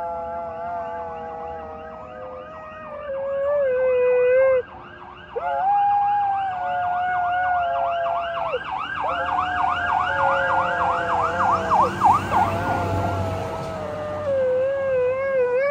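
A husky-shepherd cross dog howling in long, wavering notes along with a fire truck's siren. The siren runs in a fast yelp of about three sweeps a second, and a rumble from the passing truck swells about three-quarters through.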